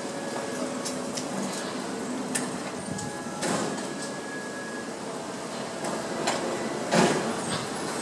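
Steady rushing drone of a distant Bombardier Dash 8 twin-turboprop airliner on approach, with a few faint steady tones. Several sharp knocks and thumps cut through it, the loudest about seven seconds in.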